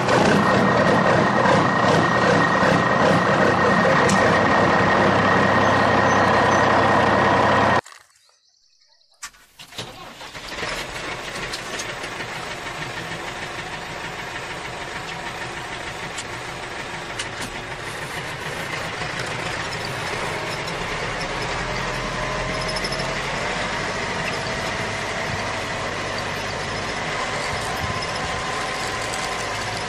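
Steady engine-like running sound. It cuts out for about a second and a half around eight seconds in, then carries on quieter.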